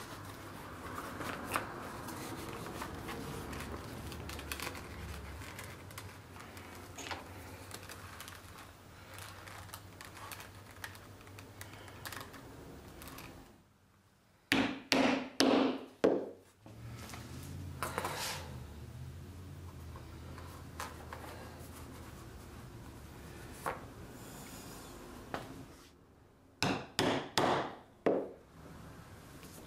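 Leather maul striking a hand punch driven into heavy holster leather on a poly pounding board: a run of about six sharp blows about halfway through, single knocks later, and another quick run of blows near the end. Before the blows there is quieter rubbing and handling of the leather.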